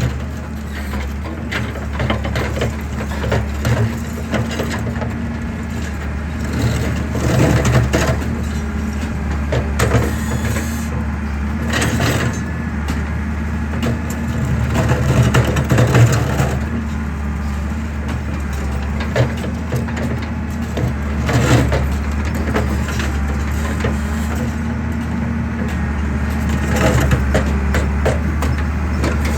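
Excavator's diesel engine running steadily beneath the crunching and cracking of concrete being crushed, with sharp cracks at irregular moments.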